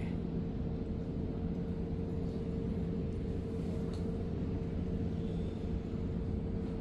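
Steady low rumble with a constant hum from the Genting Dream cruise ship under way, its propellers driving it straight ahead. A lower tone in the hum fades out past the middle.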